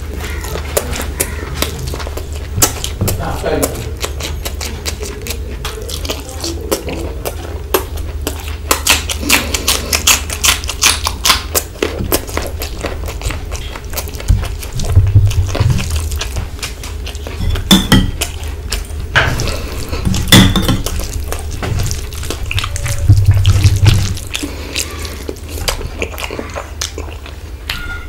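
Close-miked eating sounds: wet clicks and smacks of a man chewing mutton curry and rice and working the saucy food with his fingers. A steady low hum runs underneath, and there are louder bursts of chewing and smacking now and then.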